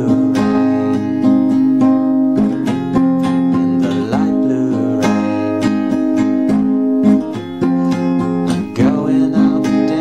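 Music: a song carried by strummed acoustic guitar chords.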